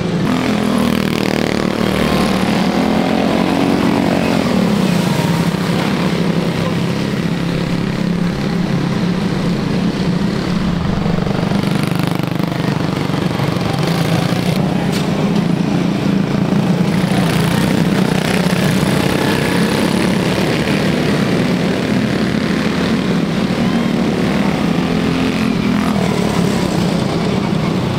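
Several Jr Honda quarter midget cars' small Honda engines running together around a dirt oval, a steady drone whose pitch rises and falls as cars pass.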